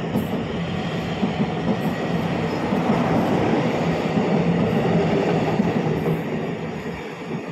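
Taiwan Railway EMU900 electric multiple unit pulling out of the station, its wheels running on the rails and its traction equipment humming as the cars pass close by. The sound fades near the end as the train moves off.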